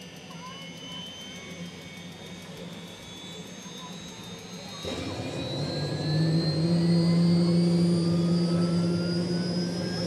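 Turbine engines of a Bell UH-1H Huey and a Hughes OH-6 Loach helicopter spooling up during start-up: a whine that climbs steadily in pitch, with a louder, deeper steady drone coming in about five seconds in as the rotors turn slowly.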